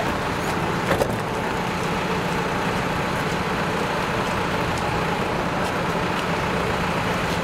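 Large diesel truck engines idling, a steady low hum under outdoor background noise, with one brief sharp knock about a second in.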